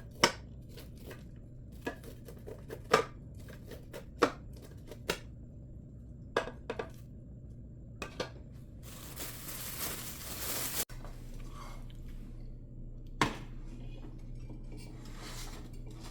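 Kitchen utensils knocking and clinking against dishes and pans: about a dozen sharp knocks at uneven intervals, with a hiss lasting about two seconds a little past the middle.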